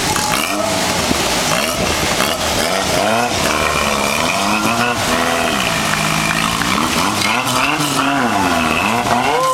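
A small boat's engine revving, its pitch rising and falling over and over as the boat drives out through breaking surf, with the rush of the waves underneath.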